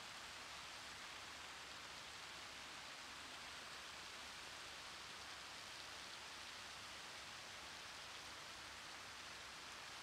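Water from an ornamental fountain's jets falling and splashing steadily into its basin, a fairly faint, even splashing hiss with no change.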